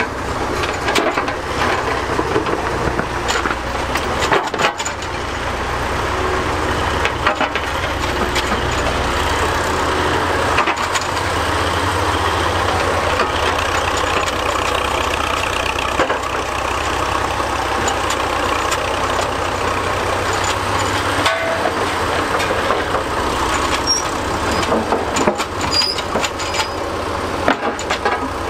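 Vintage Priestman Tiger cable excavator working: its engine runs steadily while the cable-worked bucket digs, with occasional short knocks over the engine.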